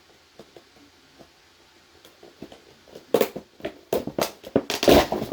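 Handling noise from a plastic smoke detector being taken apart by hand: a few faint ticks, then from about three seconds in a busy run of loud plastic clicks, knocks and rustling.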